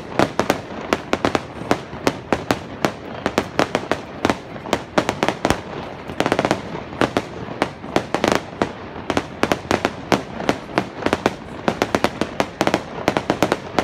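Aerial fireworks display: shells bursting in quick, irregular succession, several sharp bangs a second.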